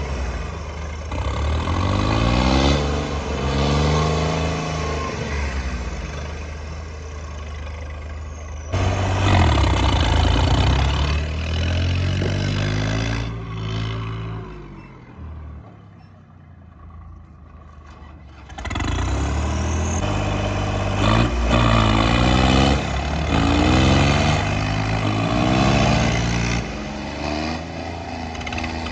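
Diesel tractor engines working hard under load in a tug-of-war, their pitch rising and falling as they rev. The sound drops to a quieter stretch past the middle, then comes back loud suddenly.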